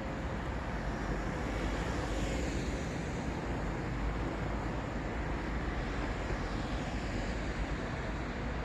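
Steady city traffic noise: cars passing in a continuous low rumble, one swelling slightly a couple of seconds in.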